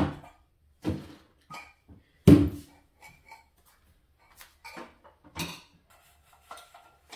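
Kitchen clatter: a series of about seven separate knocks and clunks, the loudest a little over two seconds in.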